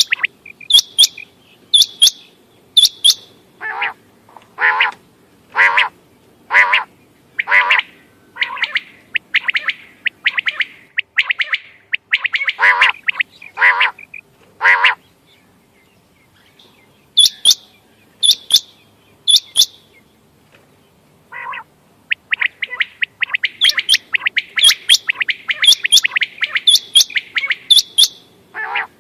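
Quail calling: groups of short, very high, sharp notes alternate with a run of lower, fuller calls about one a second. After a brief pause, a dense burst of rapid calling builds near the end.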